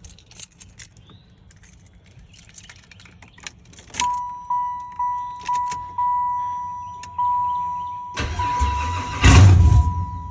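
Car keys jangling and clicking, then a dashboard chime beeping about twice a second as the ignition is switched on, then, about 8 seconds in, the 1995 Impala SS's newly installed LS7 V8 cranking loudly for about two seconds on its first start attempt.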